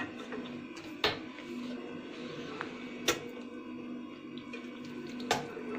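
Three short knocks and clinks, about two seconds apart, from a metal colander and a glass food-processor bowl being handled, over a steady low hum.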